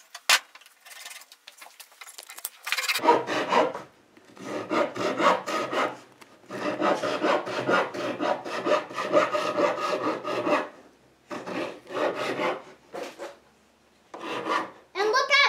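A hand blade scraping along the bark and wood of an elm log in runs of quick rasping strokes, with short pauses between the runs.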